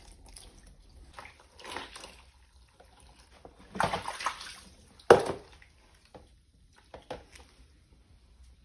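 Water sloshing and splashing in irregular bursts as a pillow is washed by hand in a tub of water, the loudest splashes about four and five seconds in.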